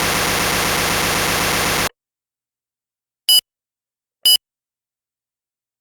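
Electronic test-mode sounds from a 2018 LeapFrog Tad's Fridge Phonics toy: a harsh, steady buzz that cuts off abruptly about two seconds in, then, after silence, two short high beeps about a second apart.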